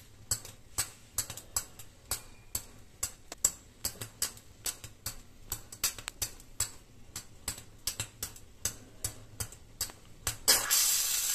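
A small burning bundle held over a steel bowl of water crackles with irregular sharp pops, several a second, as it throws sparks and drops burning bits into the water. Near the end a loud, steady hiss comes in suddenly.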